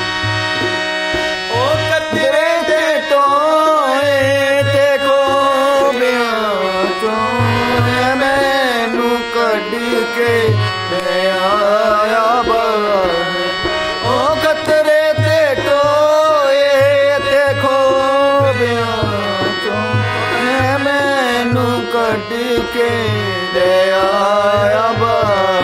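A man sings a Punjabi song in a gliding, ornamented melody over a harmonium's held reeds, with a hand-played barrel drum beating out a steady rhythm.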